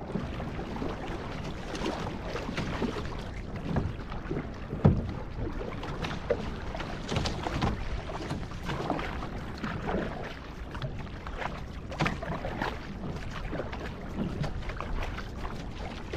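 Water splashing and paddle strokes on an outrigger canoe under way, with wind rumbling on the microphone. There are irregular splashes and knocks, and a sharp knock about five seconds in.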